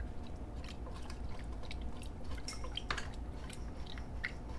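Faint, irregular small clicks and drips at a pot of beef stock and gravy as seasoning is added, over a low steady hum.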